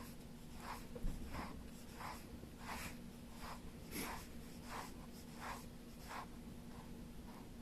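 Rhythmic soft scratching strokes, about one and a half a second, over a faint steady hum.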